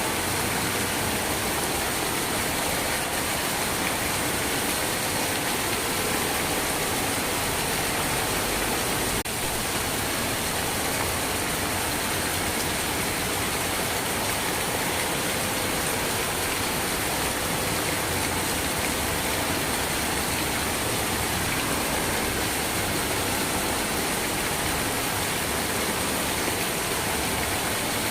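Steady, dense rain: an even hiss of falling rain.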